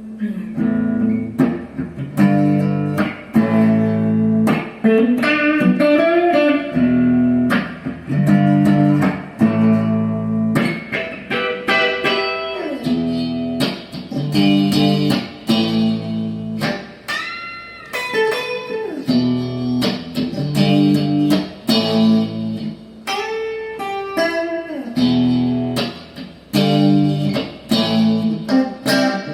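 Ibanez Jem Jr electric guitar being played: a string of picked notes and chords with string bends, including one long bend a little past the middle.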